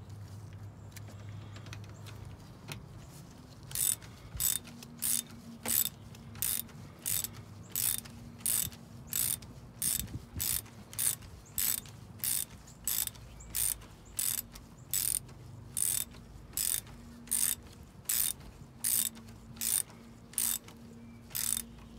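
Hand ratchet clicking on each back-stroke while it turns a socket extension to thread the oil filter cap back in, about thirty short bursts at an even pace of nearly two a second. It starts a few seconds in and stops just before the end.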